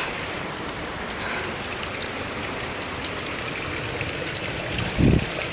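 Steady rush of flowing water, a river or waterfall near the trail. A single loud low thump about five seconds in.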